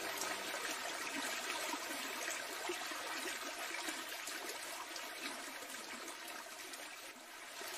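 Faint, steady trickling of water, with no music or tune in it.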